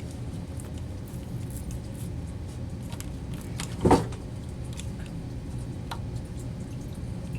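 Handling noises from work on a sewage pump's float switch: scattered light clicks and one louder knock about four seconds in, over a steady low hum.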